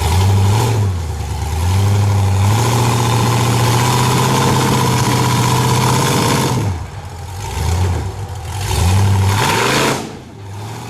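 Off-road rock buggy engine revving hard under load in bursts: a short rev at the start, a long held high rev from about two and a half to six and a half seconds, then another rev that drops away near the end.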